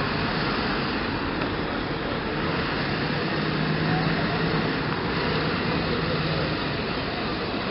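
Outdoor crowd chatter and street noise, a steady wash of background voices and traffic, with a low steady hum for a few seconds in the middle.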